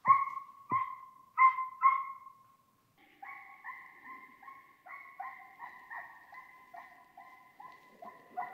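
Drever hunting dog baying on a hare's track, giving tongue during the chase: four loud barks in the first two seconds, then after a short pause a steady, fainter run of baying at about two to three barks a second.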